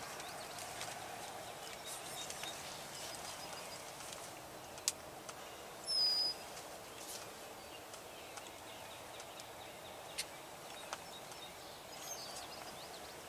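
Rural field ambience: a steady hiss of open-air noise with a few faint clicks and short, high bird chirps, the loudest a single brief chirp about six seconds in.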